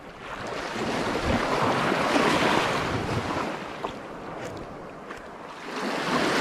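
Surf breaking on a beach: a wave swells up over the first two or three seconds and washes out, and another builds near the end. Wind buffets the microphone.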